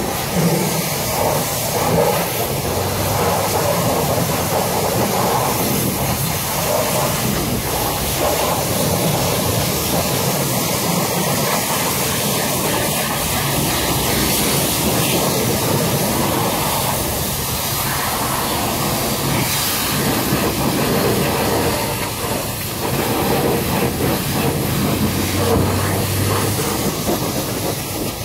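Pressure washer lance spraying water onto a car's bodywork, a loud, steady hiss of the jet.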